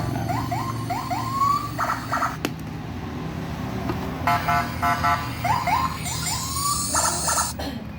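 RC horn/klakson module sounding its electronic horn sample through its small speaker: bursts of quick stuttered horn beeps alternating with a run of short rising whoops, the pattern played through about twice, like a siren. It cuts off with a click about two and a half seconds in and again near the end.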